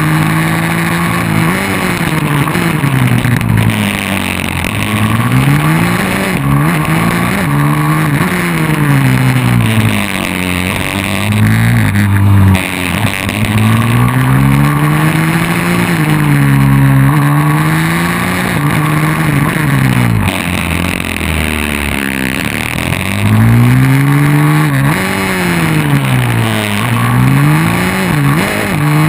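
150cc single-cylinder four-stroke pit bike engine at race pace, heard from an onboard camera, revving up and falling back every two to three seconds as it accelerates out of corners and shuts off into the next, with a steady rush of wind noise on the microphone.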